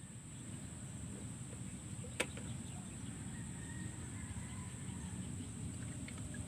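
Rural field ambience: a steady low rumble and a constant high-pitched hiss, a single sharp click about two seconds in, and a few faint distant bird calls.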